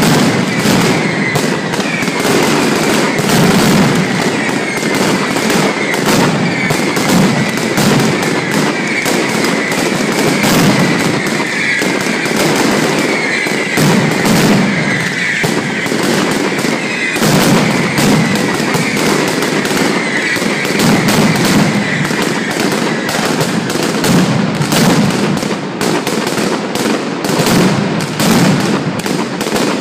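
Mascletà firecrackers hung on ropes going off in a loud, dense, unbroken crackle of bangs. Repeated high whistles falling in pitch run through it until about three-quarters of the way through.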